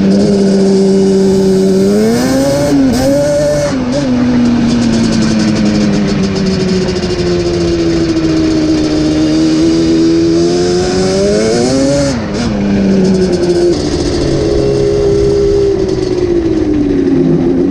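Yamaha Banshee ATV's two-stroke parallel-twin engine running under way. It rises in pitch as it is revved up about two to four seconds in and again about twelve seconds in, then settles back to a steady cruise.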